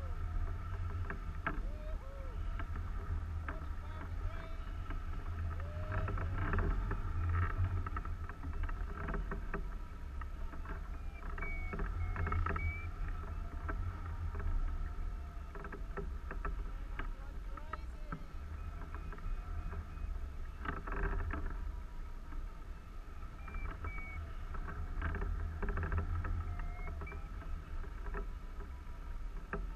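Airflow rushing and buffeting over the camera microphone on a hang glider in flight, a steady rumbling rush with faint whistling tones above it.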